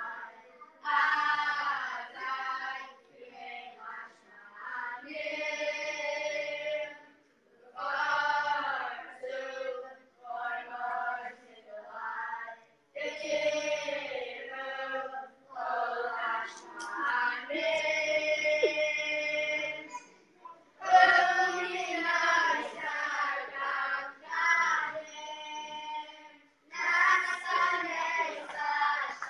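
A boys' choir singing together, in phrases of a second or two broken by short pauses.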